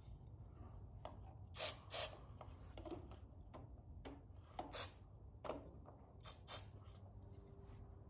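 Aerosol carburetor cleaner sprayed in about six short hissing spurts, in pairs or singly with pauses between. The spray is going into the fuel passages of a generator carburetor that is suspected to be dirty because the engine won't start.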